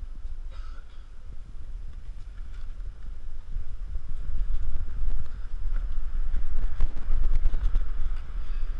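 Wind buffeting the camera microphone, a low rumble with occasional handling knocks, getting louder about halfway through.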